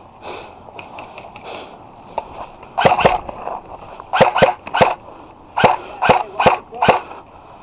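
A series of about eight sharp knocks, starting about three seconds in and coming roughly half a second apart.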